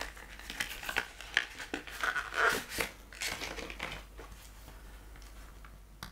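A cardboard box is handled and opened and a plastic LCD writing tablet is slid out of it: rustling and scraping with scattered clicks, busiest in the first three seconds and quieter after.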